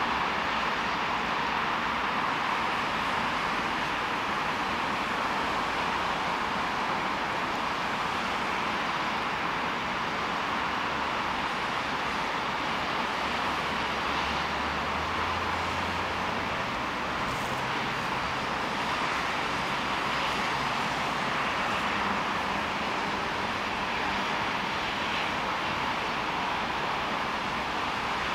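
A distant 2TE116 diesel locomotive with a freight train approaching, heard as a steady rushing rumble with a low engine drone that steps up in pitch about halfway through as the diesel is worked harder.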